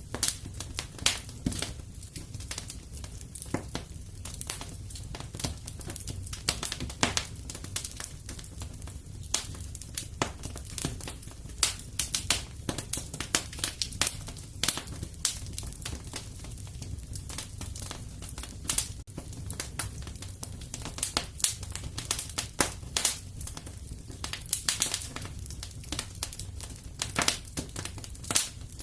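Wood fire in a fireplace crackling, with irregular sharp pops and snaps several times a second over a steady low rumble of the flames.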